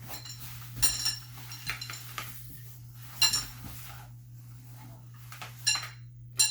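Metal parts of a playpen frame clinking and knocking together as it is assembled: a handful of sharp, ringing clinks, about a second in, after three seconds, and twice near the end.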